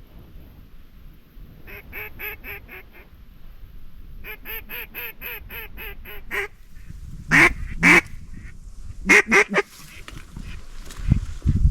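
Mallard hen quacking blown on duck calls: a short run of quacks, then a longer evenly paced run, then several loud single quacks. Low wind rumble comes in near the end.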